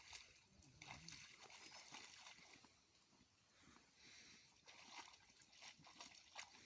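Faint sloshing and small splashes of shallow pond water stirred by someone wading, with scattered soft clicks.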